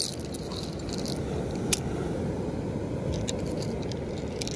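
Low, steady rush of surf and wind, with a few sharp clicks scattered through it.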